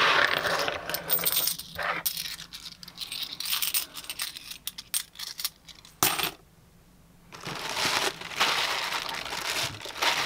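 50p coins jingling and clinking together as a handful is scooped up and poured into a bag, with many sharp clinks. After a brief lull a little past halfway, a clear plastic bag crinkles steadily as it is handled.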